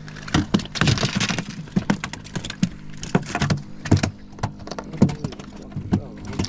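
A run of irregular knocks and clatters as a freshly caught speckled trout is brought into the boat and handled on the fiberglass deck, with a hand tally counter clicked near the end to log the fish.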